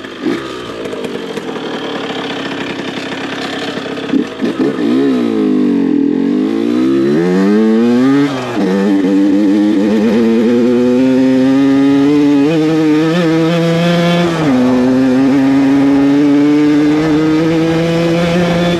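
Two-stroke engine of a Honda HM CRE 50 enduro moped fitted with an 80 cc cylinder kit and a 19 mm Dellorto carburettor, being ridden. The revs fall and climb again, then the engine pulls with its pitch rising steadily, drops sharply at a gear change about three-quarters of the way in, and climbs again.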